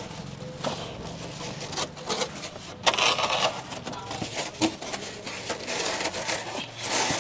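Thermocol (expanded polystyrene) sheets scraping and rubbing against each other and the concrete floor as they are set down and pushed into place, in irregular short scrapes.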